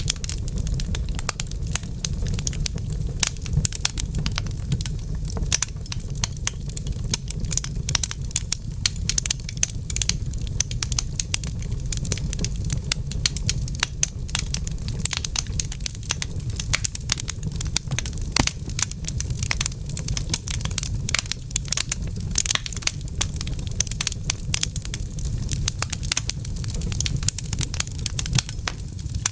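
Fireplace fire crackling: dense, irregular sharp pops and snaps over a steady low rumble.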